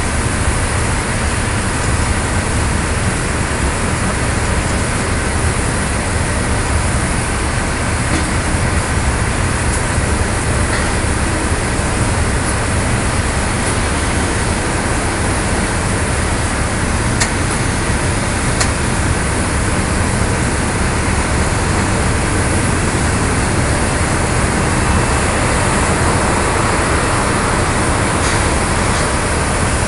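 Steady, loud machinery noise on an airport ramp beside a parked airliner, unbroken throughout.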